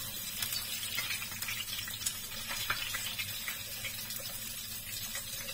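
Salmon belly pieces sizzling in a frying pan full of the fish's own rendered oil: a steady hiss with many small crackles.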